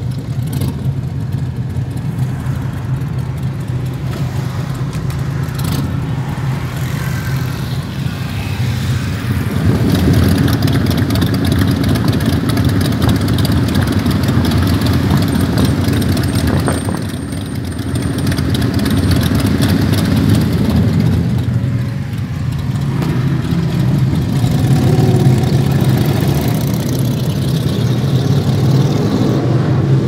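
A group of Harley-Davidson V-twin motorcycle engines idling and running together in traffic, a steady low engine drone that grows louder about ten seconds in.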